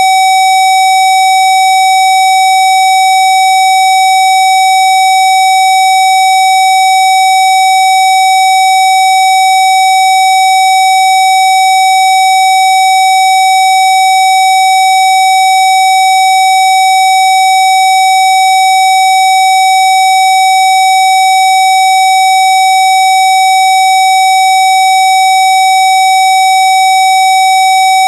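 Loud, steady synthesized electronic tone, a 'Rife healing frequency', held on one pitch with a buzzy stack of overtones and no change at all.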